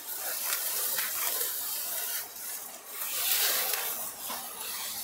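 A silk saree rustling and swishing as it is lifted, shaken out and spread by hand, the fabric sound swelling and fading with each movement.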